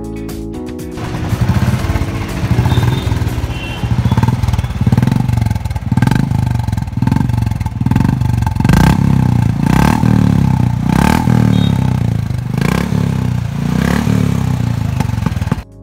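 Royal Enfield Classic's single-cylinder engine running through a chrome Indore aftermarket silencer, the throttle blipped again and again so the exhaust note surges and falls back. It cuts off suddenly near the end.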